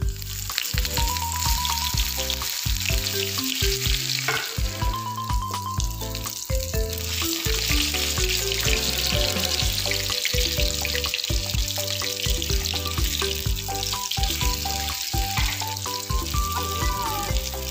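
Breaded tofu katsu frying in hot oil, a steady crackling sizzle, under background music with a regular bass beat.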